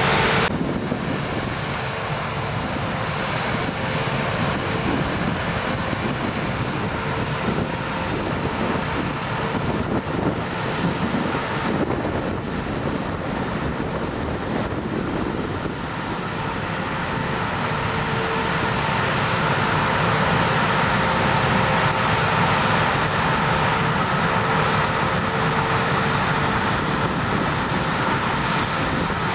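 Combine harvesters and tractors with chaser bins working in a wheat field: a steady machinery drone with a faint steady whine, growing louder in the second half, with wind on the microphone.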